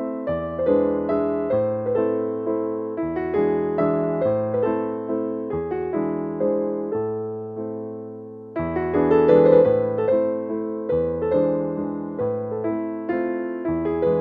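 Background piano music: a gentle melody of struck, fading notes over changing bass notes, easing off about eight seconds in before the next phrase comes in louder.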